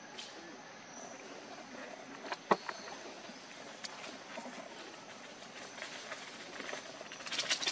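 Outdoor ambience with a faint steady high-pitched tone and scattered small clicks. One sharp knock comes about two and a half seconds in, and a rustling crackle near the end.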